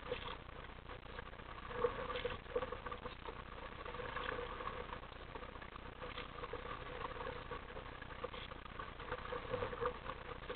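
Small waves lapping and slapping against the plastic hull of an RTM Mambo sit-on-top kayak as it moves through choppy water, with irregular light splashes.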